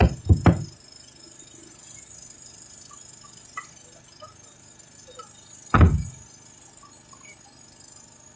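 Large drum struck with a stick: three quick, heavy beats, then a single beat about six seconds in, each a deep boom.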